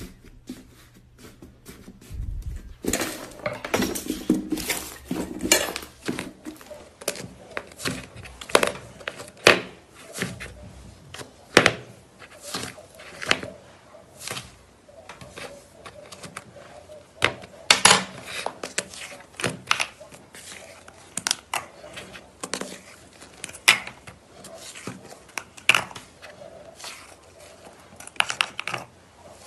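Puffy, air-filled slime being poked and pressed, giving irregular crackling pops and clicks as its air pockets burst. The pops start about three seconds in.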